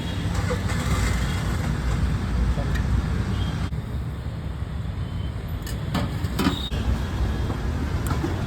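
Street traffic: a steady low rumble of passing vehicles, with a few short clicks or knocks about six seconds in.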